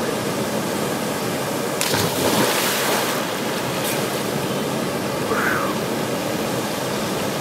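Steady rush of a small waterfall pouring into a rock pool, broken about two seconds in by a big splash lasting about a second as a person plunges into the pool.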